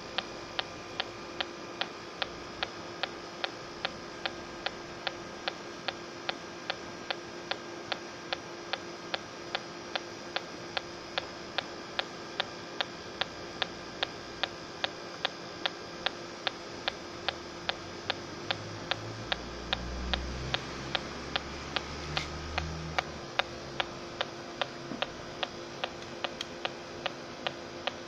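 Smart Sensor refrigerant (freon) leak detector ticking steadily at about two ticks a second, the rate never quickening; with its sense lights unlit, this is its idle rate, no refrigerant sensed. A low rumble of handling comes in about two-thirds through.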